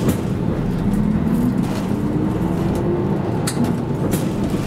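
City bus driving, heard from inside the cabin: a steady engine rumble with a tone that rises in pitch as the bus picks up speed. A few sharp clicks and rattles are heard along with it.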